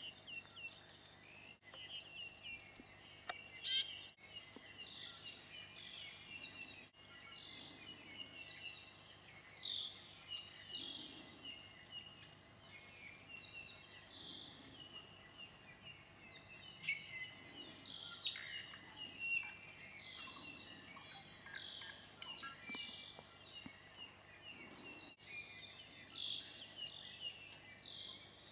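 'I'iwi, a Hawaiian honeycreeper, calling: a continuous stream of short, high chirps and whistles. A single sharp click comes a little under four seconds in.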